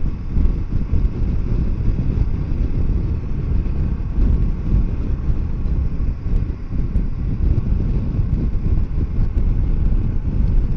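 Kawasaki Versys 650 parallel-twin engine running at cruising speed in traffic, mixed with a steady, fluctuating wind rumble on the rider's microphone.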